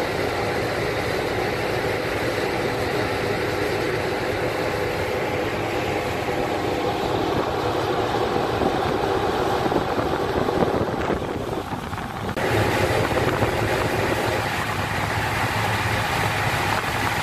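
Boat diesel engine running steadily under way, with a steady rushing noise over it. The sound dips briefly and changes in tone about twelve seconds in.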